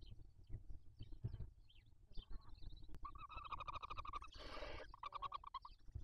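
Barn owls calling faintly in the nest: short high chirps, then a fast chittering run about three seconds in, a brief hiss, and a second chittering run. Soft low bumps of the birds shifting about underneath.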